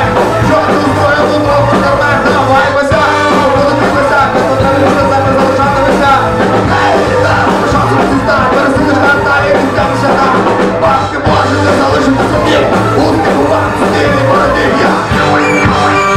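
A ska-punk band playing live: drums, electric guitar and brass, with a man singing into a microphone over them.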